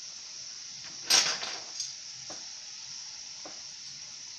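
Canola oil sizzling steadily around plantain slices shallow-frying in a nonstick pan. A metal fork clatters against the pan once sharply about a second in, then taps lightly a few times.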